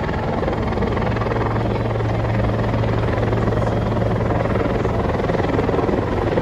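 Helicopter flying overhead with a large flag slung beneath it, its rotor and engine making a steady drone.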